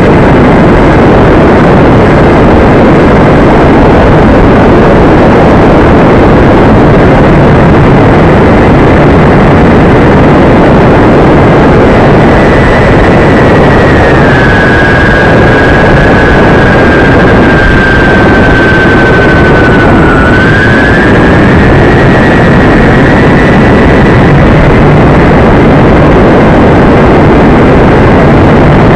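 Radio-controlled Canadair CL-415 model aircraft in flight: a steady high motor whine over a loud rushing noise. About halfway through, the whine drops in pitch for several seconds, then rises back to its earlier pitch.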